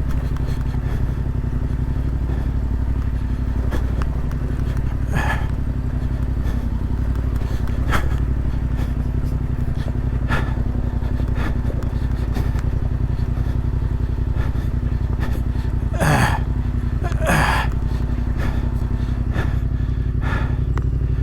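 Adventure motorcycle's parallel-twin engine running steadily at low revs, with a few knocks and clatters from the bike. The engine cuts off suddenly at the end.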